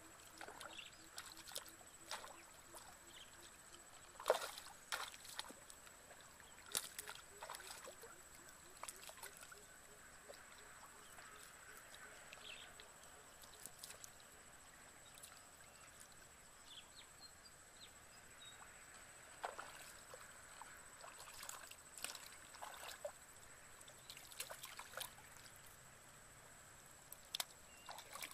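Quiet sloshing and small splashes of hands and bare feet in shallow muddy water, as someone wades and gropes under the surface for fish. Short louder splashes come every few seconds.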